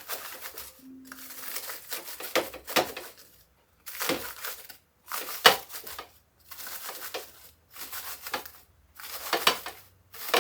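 Brittle freeze-dried chili and dried crackers crunching and crackling as they are handled and broken by hand, a string of short rough bursts with brief pauses between. The dry crunch shows the food is fully dried.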